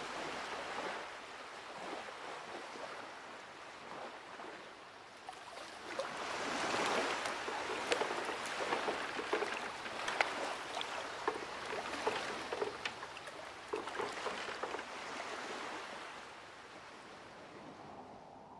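Sea water washing and splashing, with many small splashes. It swells about a third of the way in, then dies away near the end.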